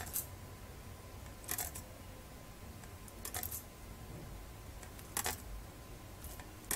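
Computer keyboard and mouse clicking as numbers are entered cell by cell into a software array: a short cluster of sharp clicks about every one and a half to two seconds, over a low steady hum.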